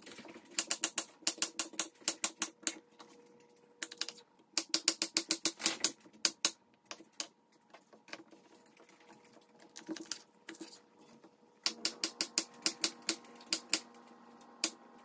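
Chef's knife chopping a green bell pepper on a wooden cutting board: quick runs of sharp knife strikes, several a second, in three bursts with scattered single cuts between.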